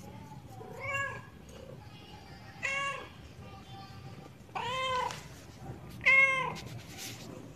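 Black Persian cat meowing four times, each meow rising and then falling in pitch; the third is the longest.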